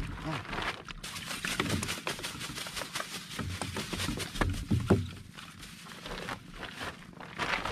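Woven plastic rice sack rustling and crinkling in irregular crackles as it is handled and shaken open and styrofoam floats are pulled out of it.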